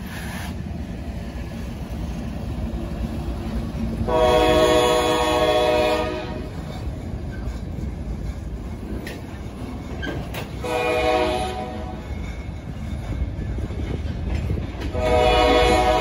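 Horn of a CSX GE freight locomotive: a long blast about a quarter of the way in, a short blast just past the middle, and another long blast starting near the end. Beneath the horn runs the steady rumble and wheel clatter of the passing freight train.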